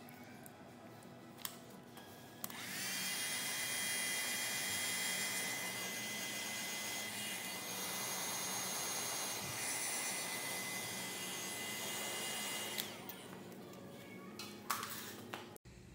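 Electric heat gun switched on about two seconds in: its fan motor runs with a steady high whine over rushing air for about ten seconds, then it is switched off. A few light clicks follow near the end.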